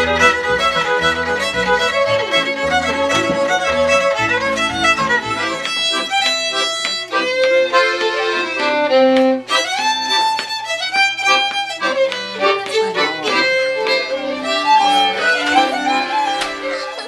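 Fiddle tune on violin, accompanied by upright bass for the first few seconds. About six seconds in the bass drops out and the fiddle goes on with accordion accompaniment. The music stops suddenly at the end.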